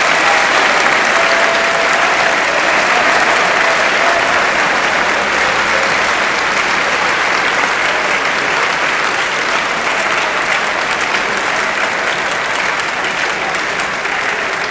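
A large audience applauding steadily in a hall, the clapping swelling up quickly and easing only slightly near the end.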